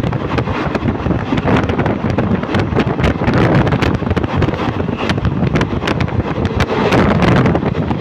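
Moving Indian Railways passenger coach heard from its open doorway: a steady rumble of steel wheels on the rails, full of many sharp clicks and rattles, with wind buffeting the microphone.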